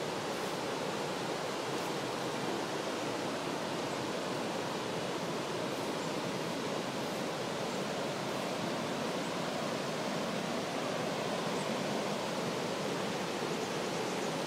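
Water rushing over a low river weir: a steady, even roar of falling water.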